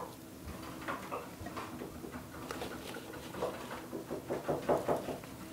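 Soft pats and light clicks of raw potato slices and red onion pieces being laid by hand into a ceramic baking dish, with a denser run of them past the middle as a handful of potato slices is scooped from a metal bowl.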